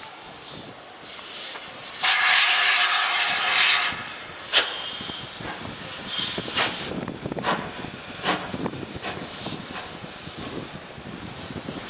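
GWR Manor class 4-6-0 steam locomotive: a loud burst of hissing steam for about two seconds. It then moves off slowly with its cylinder drain cocks open, steam blasting from the cylinders in chuffs a little under a second apart.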